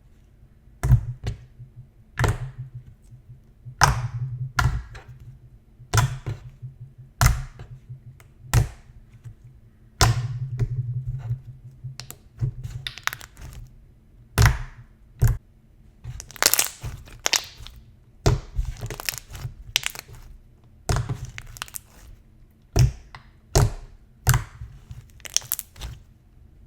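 Slime being squished and pressed by hand, making sharp pops and clicks as air pockets burst, about one a second, with a denser stretch of crackling about two-thirds of the way through.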